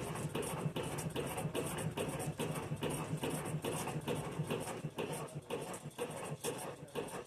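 Singer 15 sewing machine running slowly, its needle stitching through Naugahyde vinyl upholstery at about three stitches a second over a steady motor hum.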